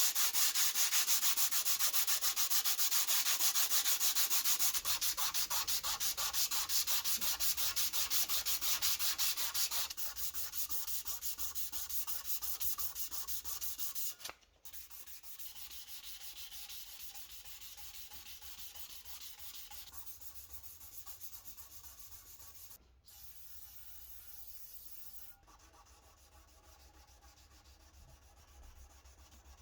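Hand sanding: fast, even back-and-forth strokes of abrasive rubbing on the surface of a jewelry box. The strokes are loud for the first third, then quieter, with a few abrupt breaks where one stretch of sanding gives way to another.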